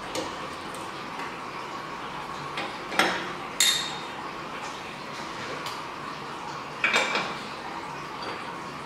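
Metal parts of a pad printing machine being handled by hand: four separate metallic clinks and knocks with short ringing, the loudest a little over halfway through the first half and again about seven seconds in, over a steady faint hum.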